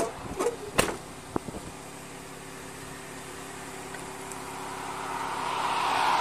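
A few sharp knocks and clicks in the first second and a half, from a car door as someone climbs out. Then a car passing on the highway, its tyre and engine noise swelling to its loudest near the end.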